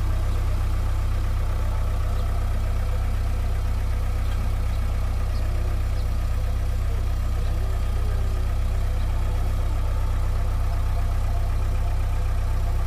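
A JCB backhoe loader's diesel engine running steadily at low revs, a constant deep hum with no revving.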